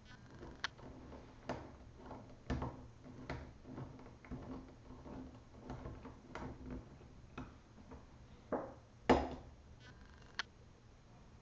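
Irregular light clicks and taps of a small screwdriver and laptop hinge parts being handled as screws are put into the hinge arm, with a louder knock about nine seconds in.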